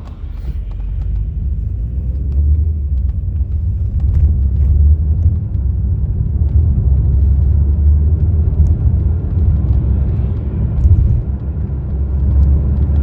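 Steady low rumble of a car on the move, road and engine noise heard from inside.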